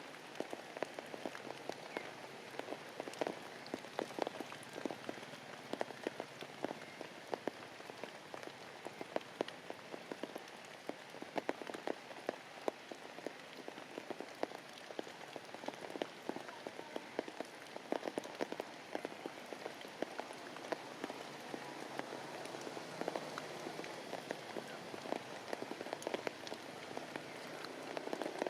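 Heavy rain falling steadily, with many sharp individual drops striking nearby surfaces.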